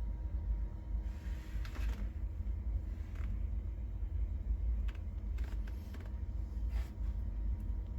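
Gas water heater's main burner running with a steady low rumble, burning normally, with a few faint clicks and rustles over it.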